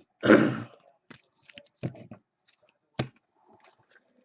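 A short breathy sound, like a sigh or cough, near the start, then scattered light clicks and taps of trading cards being handled and sorted.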